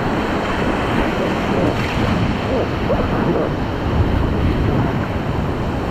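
Rushing river water, likely rapids under a raft, heard as a loud steady wash with wind buffeting the microphone.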